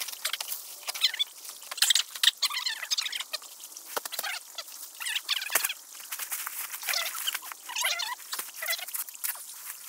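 Footsteps crunching and rustling through dry leaves and brush, an irregular run of crackles with a couple of sharper knocks about four and five and a half seconds in.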